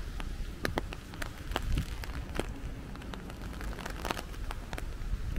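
Raindrops striking a hard surface close to the microphone: sharp, irregular ticks, several a second, over a low rumble.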